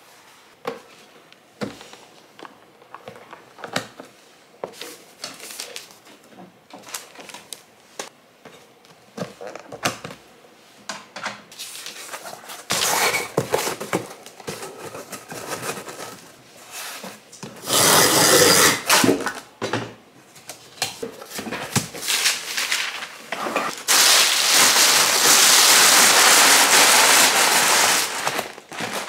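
Cardboard shipping boxes and packing material being handled: light rustling, tapping and handling clicks, then three longer loud stretches of scraping, ripping noise, the last about four seconds long near the end.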